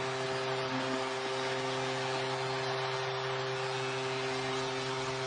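Arena goal horn holding one steady low note over a loud cheering crowd after a home goal.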